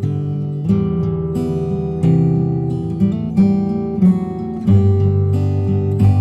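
Background music: strummed acoustic guitar, with the chord changing every second or so.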